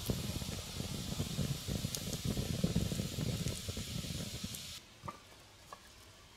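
Wood campfire burning close up: a steady hiss with scattered sharp crackles over a low fluttering of the flames, cutting off abruptly about five seconds in. A few faint ticks follow.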